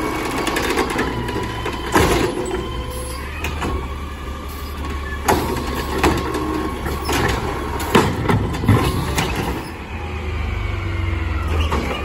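Automated side-loader garbage truck running while its hydraulic arm lifts a wheeled cart and tips it into the hopper, with a whine that rises and falls and several sharp bangs of the cart against the arm and body. Near the end the engine rumbles louder as the truck pulls away.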